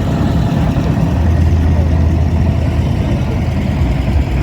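A motor vehicle's engine running with a steady low hum, which swells for a couple of seconds from about one second in.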